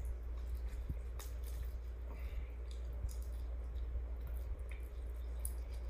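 Rotisserie chicken being torn apart by hand and chewed: small wet squishes and scattered clicks, over a steady low hum.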